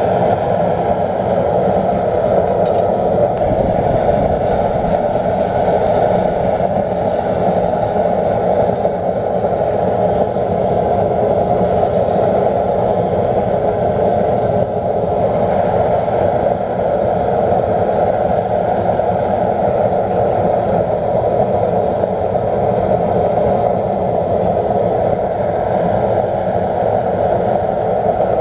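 Steady, unbroken rushing drone of a backyard metal-melting furnace's burner running.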